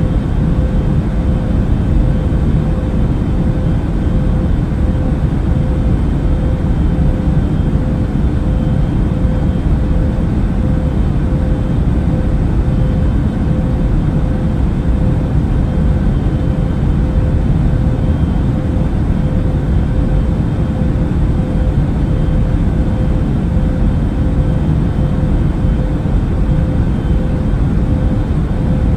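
Airplane cabin noise in flight: a steady low rumble of engines and airflow with a constant hum running through it.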